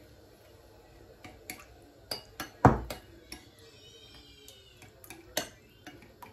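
Metal spoon clinking and scraping against a ceramic bowl while stirring tomato paste with water: irregular light clinks, with one louder knock about two and a half seconds in.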